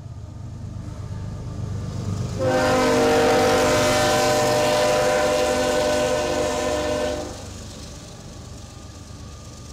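Freight locomotive's air horn sounds one long, steady multi-tone chord lasting about five seconds as the locomotive passes. The rumble of the approaching train builds beforehand, and after the horn stops the freight cars rumble by.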